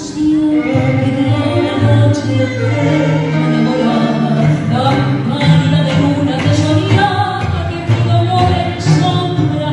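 Live tango ensemble of bandoneón, violin, double bass and piano playing a song, with a woman singing into a microphone over it.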